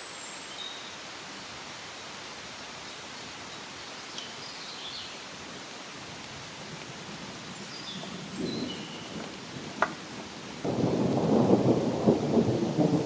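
Steady rain falling on the forest canopy, with a few short, high bird chirps over it. In the last two seconds a louder, jagged rumbling noise covers the rain, the kind made by handling or wind on the microphone.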